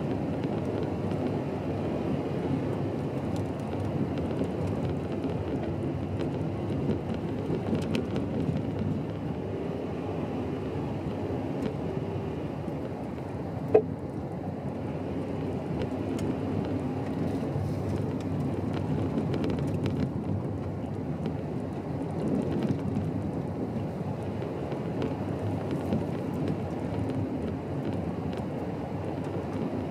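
A car driving slowly on a gravel road, heard from inside the cabin: a steady rumble of tyres on loose gravel and the engine, with scattered small clicks of stones. One brief sharp sound stands out about halfway through.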